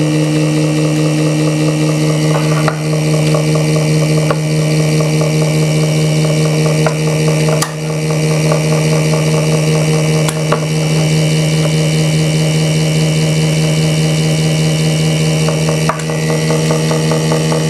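BoxMotor pulse motor running steadily, its rotor spinning and its pulsed coils giving a loud, even hum. A few sharp clicks come from a clamp meter being handled on its wiring.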